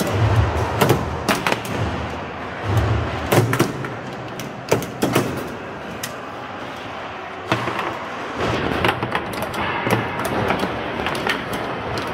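Foosball table play: irregular sharp clacks and knocks as the ball is struck by the plastic players and the rods hit the table, over steady background noise.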